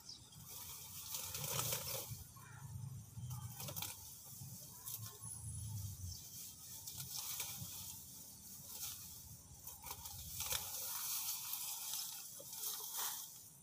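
Grass and weeds being pulled up by hand, with irregular rustling of leaves and stems.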